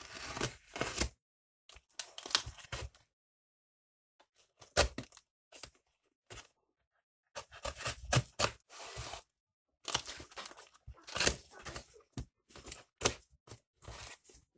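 Hobby knife slitting the packing tape of a parcel, with the tape and cardboard being torn and pulled open: irregular bursts of cutting, tearing and rustling with short silences between them.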